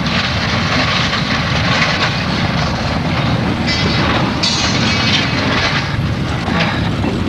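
Freight train cars rumbling and grinding as they derail and tip over. A harsher, higher scraping sound comes in around the middle and fades.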